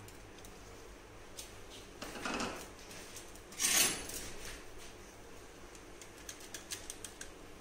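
A metal spoon stirs curry leaves in a steel kadhai of warm coconut oil. There are two brief scraping noises, the louder one about three and a half seconds in, then a run of light clicks of the spoon against the pan near the end.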